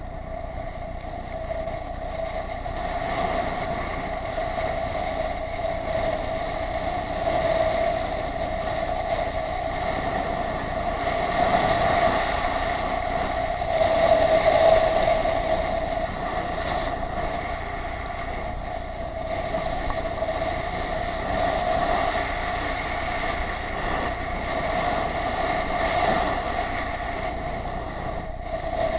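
Steady rushing of air and sliding snow past a camera travelling down a groomed ski slope, with a continuous drone running under it. It gets louder about halfway through, as the run picks up speed.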